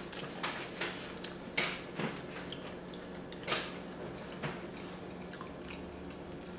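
Eating sounds: chewing, with irregular wet mouth clicks and lip smacks, about eight over the stretch, over a faint steady low hum.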